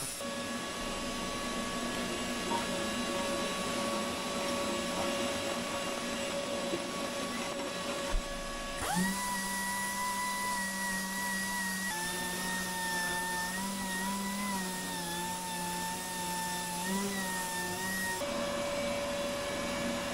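Steady whir of a fan and shop vacuum running. About nine seconds in, an air-powered grinder starts with a high whine over it, wavering in pitch as it grinds away old Chockfast resin, then stops about nine seconds later.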